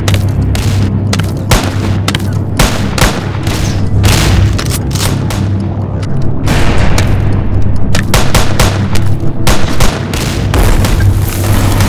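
A gunfight: many gunshots in rapid, irregular succession, some in quick bursts, over a steady low hum.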